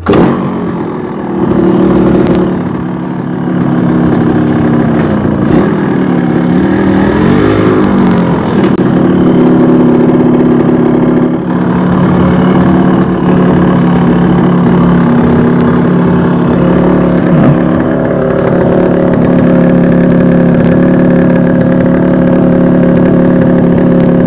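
Suzuki RXT 135's single-cylinder two-stroke engine running. The pitch dips and rises with throttle a few seconds in, then it idles steadily.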